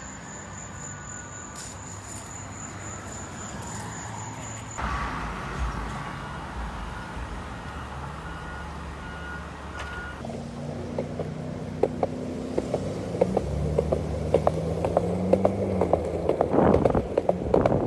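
Road traffic running by, with engine tones rising and falling. A steady high tone sounds for the first few seconds. In the second half a regular clacking comes in, a couple of clacks a second.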